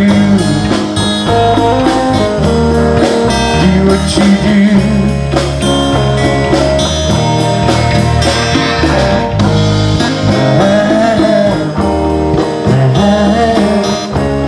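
Background music: a guitar-led blues-rock song with a steady beat.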